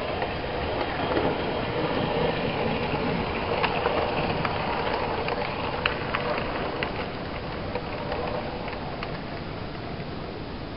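OO gauge model locomotive running along the track past the camera, a steady rumble of motor and wheels with sharp clicks as the wheels cross the rail joints, strongest in the first half.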